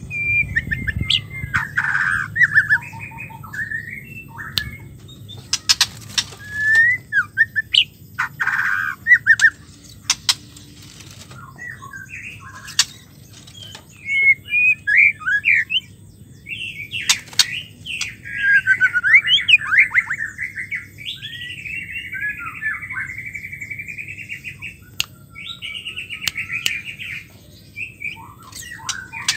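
White-rumped shama singing: short, varied whistles, chirps and rapid chattering phrases broken by pauses, with a longer unbroken run of song past the middle, and a few sharp clicks in between.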